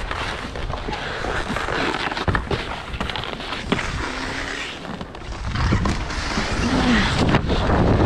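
Skis sliding and scraping over packed snow and terrain-park features, with wind rushing over the head-mounted camera's microphone. A few sharp knocks come through, about two and a half seconds and near four seconds in.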